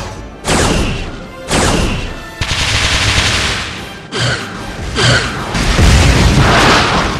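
Sci-fi disruptor-fire sound effects: about five blasts roughly a second apart, several sweeping down in pitch. Near the end comes a longer explosion with a deep rumble, all over background music.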